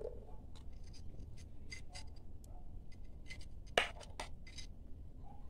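Small spoon scraping and clicking against a steel bowl while scooping momo filling onto a dough wrapper, with faint scattered clicks and one sharper click nearly four seconds in.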